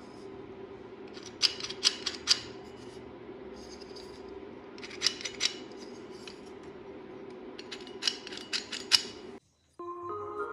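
Three short bursts of sharp metallic clicking over a steady low hum. Music begins near the end.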